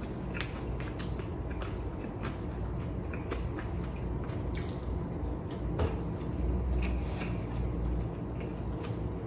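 A person eating: wooden chopsticks clicking on a plastic bento tray, and rice being chewed with wet mouth sounds. The short clicks come irregularly, a dozen or so.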